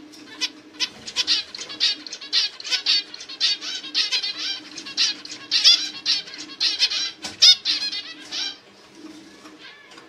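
Male zebra finch chirping in a rapid run of short notes that stops about a second and a half before the end.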